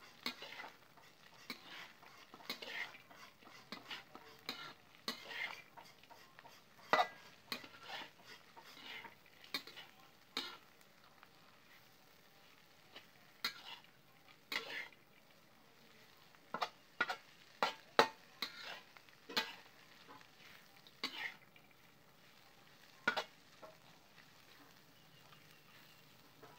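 Metal spoon stirring fried crickets and garlic in an aluminium pan, scraping and clicking against the metal at an irregular pace, over a faint sizzle of frying. The stirring pauses briefly about halfway through.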